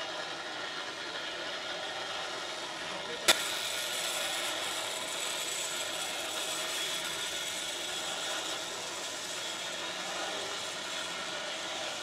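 Bicycle rolling along a suspended steel cable on a sky-cycling ride, giving a steady mechanical running noise from its wheels and drive. One sharp click about three seconds in.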